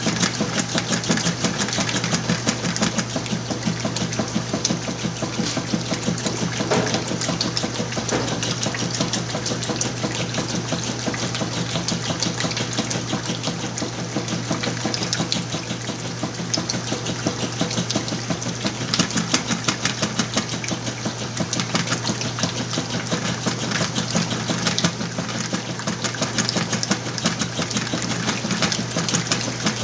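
Whirlpool washing machine running its wash cycle with a full load of clothes: a steady motor hum with fast, even ticking and some water movement.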